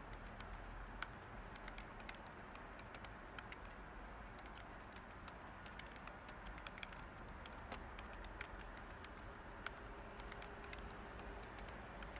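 Light typing on a computer keyboard: soft, irregular key clicks over a steady hiss of background white noise.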